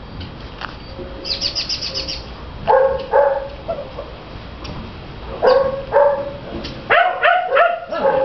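Dogs barking: two short barks in quick succession, then another pair, then a faster run of barks near the end. About a second in, a fast run of high chirps, as from a bird.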